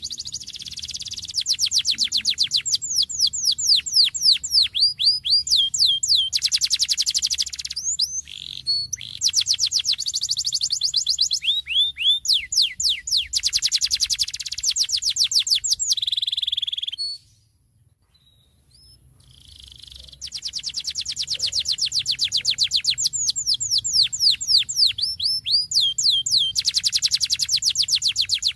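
Domestic canary singing a long, continuous song of rolling trills: runs of fast repeated down-sweeping notes. It breaks off for about three seconds a little past the middle, then starts again.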